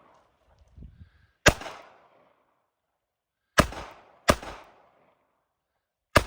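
Smith & Wesson Model 36 snub-nose .38 Special revolver firing four shots at uneven intervals, the middle two less than a second apart. Each shot is a sharp crack that trails off over about half a second.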